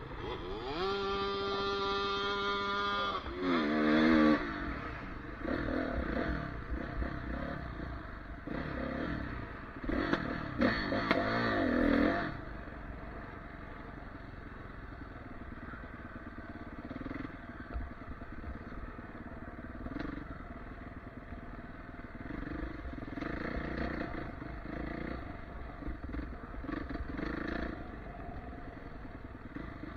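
Dirt bike engine revving hard in the first twelve seconds, with its front wheel in a deep mud rut. It holds a steady high pitch for a couple of seconds, then rises sharply about four seconds in, with more loud revving around ten to twelve seconds. After that it runs more quietly at lower throttle, rising and falling a little.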